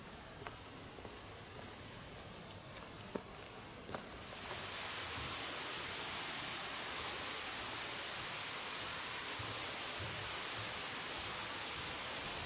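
A steady, high-pitched chorus of insects buzzing, which grows louder about four and a half seconds in.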